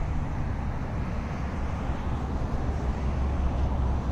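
Steady low rumble with a faint hiss of outdoor background noise, no distinct events.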